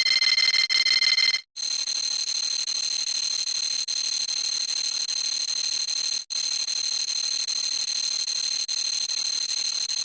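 Loud, shrill electronic alarm-like buzzing tone with a fast pulse, played as a sound effect. It cuts out briefly about a second and a half in and comes back higher-pitched, then drops out again for a moment about six seconds in.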